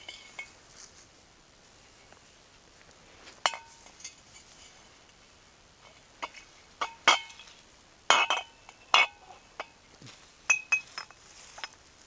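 Glass bottles clinking against each other as they are handled and gathered up: scattered sharp clinks with a short ring, one about three and a half seconds in, then a denser run through the second half.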